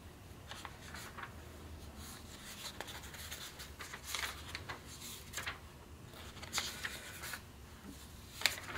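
Pages of a paperback shop manual being leafed through: a series of faint paper rustles and page flips, the clearest one near the end.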